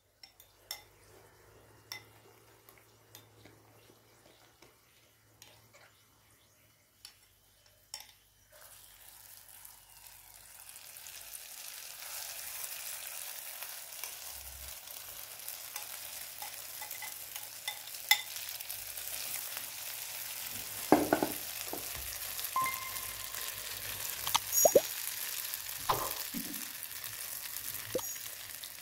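A metal spoon clicks and scrapes in a ceramic bowl as a herb mixture is stirred, faint at first. From about ten seconds in, oil sizzles steadily in a frying pan as the mixture goes in over sliced potatoes, with sharp clinks of the spoon against the pan and bowl.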